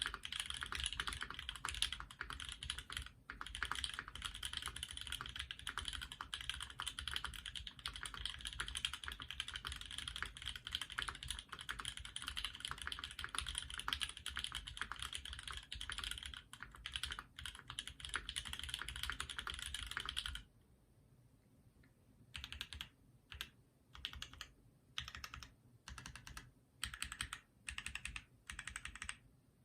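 Typing on a Phantom 65% custom mechanical keyboard with lubed, filmed Banana Split linear switches, an aluminium plate and GMK keycaps. Fast, continuous keystrokes for about twenty seconds, then the typing breaks into short bursts of keystrokes with pauses between them.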